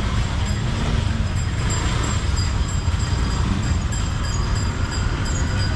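Steady outdoor street-market background noise dominated by a low rumble of passing traffic, without a clear single event.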